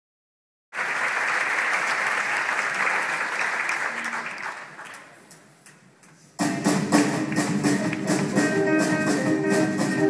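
Theatre audience applauding, dying away over a few seconds. Then a live band of guitars, piano and drum kit starts up abruptly with a steady, rhythmic song.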